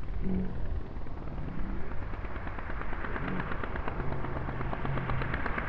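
Laser 160 inline-twin four-stroke glow engine of a large model P-51 Mustang running with a rapid, crackling beat of firing pulses, growing louder in the second half as the plane comes closer.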